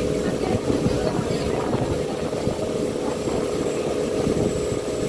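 Water taxi's engine running steadily under way, a constant drone.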